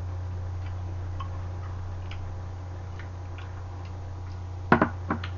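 A pull-tab tin can being cracked open: a few sharp clicks close together near the end. Underneath, a steady low hum and faint scattered ticking.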